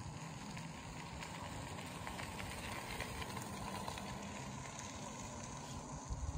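Steady outdoor background noise with a low rumble and faint crackling, typical of wind on the microphone; no call or wingbeat stands out.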